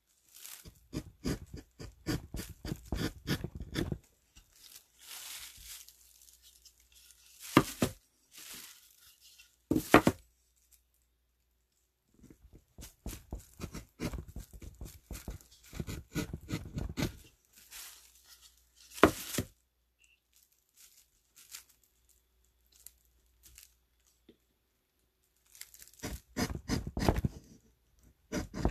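Hand carving gouge cutting into a wooden block in bursts of quick, short scraping strokes, with pauses between the bursts and a few single sharper knocks.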